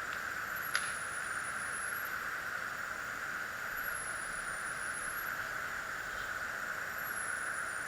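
A single-stroke pneumatic match air pistol, the Air Venturi AV-46M, firing once: one short, sharp crack just under a second in. Behind it is a steady hiss, with a faint high whine sliding slowly up and down.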